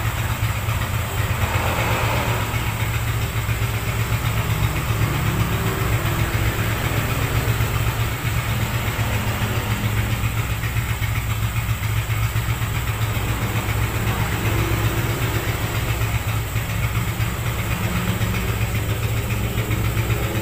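Yamaha XS650's air-cooled parallel-twin engine idling steadily, running after a cold start following two weeks unused.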